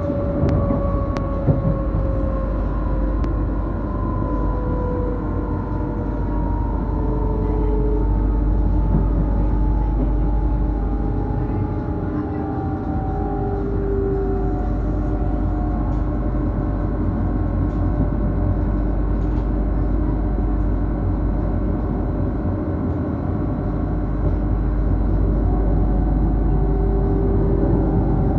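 Passenger train running, heard from inside the carriage: a steady low rumble of wheels on the track, with an electric motor whine that slowly falls in pitch. A few sharp clicks come in the first couple of seconds.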